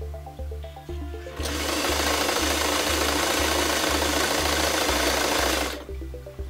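White Model 642 domestic sewing machine running at speed, sewing a patterned stitch; it starts about a second and a half in and stops near the end, with music underneath.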